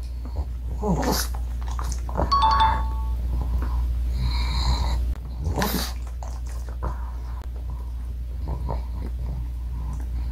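A pug's snuffling and dog noises beside someone chewing a soft homemade cookie close to the microphone, over a steady low hum. A short two-note chime falls in pitch about two seconds in.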